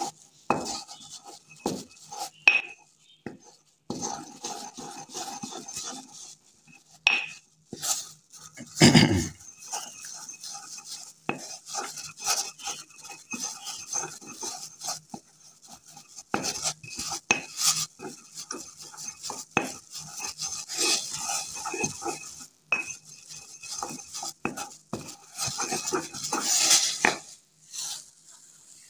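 Pestle grinding powdered ammonium chloride (noshadar) in a mortar: irregular gritty scraping and rubbing strokes with small clicks of the pestle against the bowl, and one louder thump about nine seconds in.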